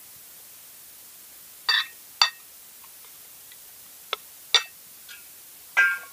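Metal spoon and fork clinking against a plate and a stainless steel soup bowl while eating: about five sharp clinks, each with a brief ring, the last and longest near the end.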